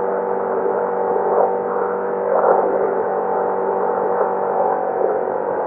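A 1,000-horsepower trophy truck's engine, heard inside the cab, running at a steady high speed of around 115 mph. It makes a steady drone made of several fixed tones, with a little rough road noise underneath.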